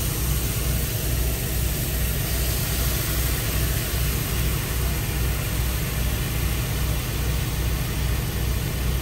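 A semi truck's diesel engine idling, heard from inside the cab: a steady low hum with an even pulse.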